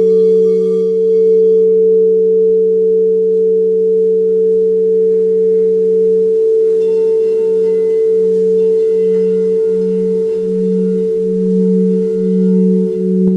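Singing bowls ringing on with two steady, sustained low tones. About halfway through, the lower tone starts to pulse about one and a half times a second, and fainter higher tones join in.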